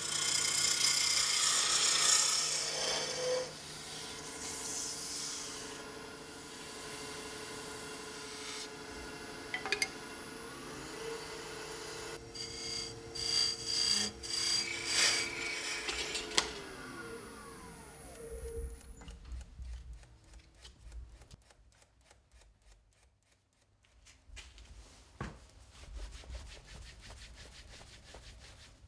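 Wood lathe turning an exotic-wood spindle blank. A turning tool cuts into the spinning wood, loudest in the first few seconds, over the lathe's steady hum. About sixteen seconds in, the lathe falls in pitch as it winds down, leaving quieter scattered clicks and handling sounds.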